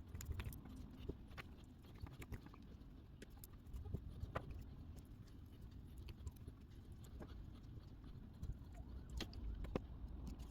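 Faint, irregular small clicks and rustling from hands untwisting the four wire pairs of a stripped Cat 6 Ethernet cable.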